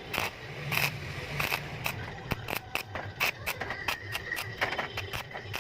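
Irregular taps, clicks and scrapes of hand work on steel parts, about two or three sharp knocks a second.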